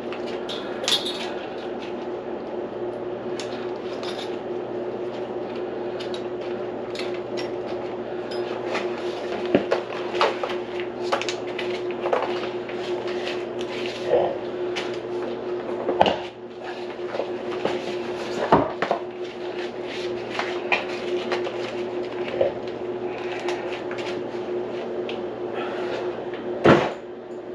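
Scattered knocks, clicks and clatter of hard objects being handled at a kitchen sink, over a steady mechanical hum. The loudest knock comes near the end.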